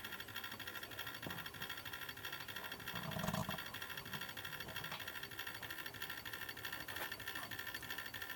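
Homemade pulse motor running, its mechanical make-break switch rapidly and evenly ticking as the points open and close while the CD rotor spins. A brief short sound about three seconds in.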